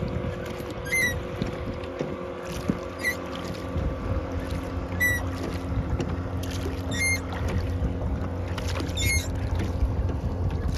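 Rowboat oarlocks squeaking once every two seconds or so with each stroke of the oars, over a steady engine hum from a motorboat running across the lake and a low rumble of wind and water.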